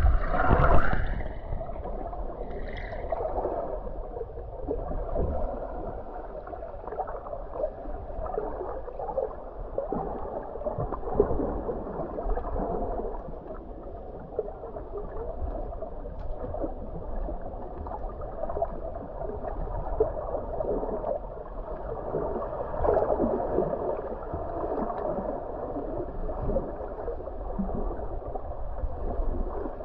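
Muffled gurgling and sloshing of water, rising and falling unevenly, with a brief louder splash right at the start.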